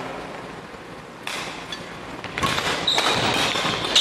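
Badminton doubles rally getting under way: sharp racket strikes on the shuttlecock and sneakers squeaking on the court floor, after a quieter first second.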